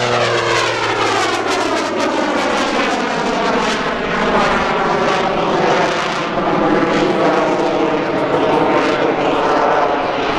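Jet Waco biplane's Pratt & Whitney R-985 nine-cylinder radial engine and propeller mixed with its belly-mounted General Electric CJ610 turbojet, as the aircraft pulls up and climbs away. The engine tones slide down in pitch over the first few seconds, then hold steady over a loud, even rush.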